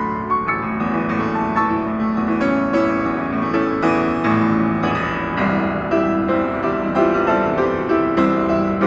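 Instrumental music: a melody of keyboard notes over lower held notes, playing steadily without a break.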